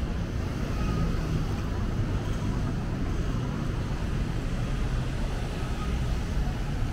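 Steady low rumble of city street ambience with road traffic.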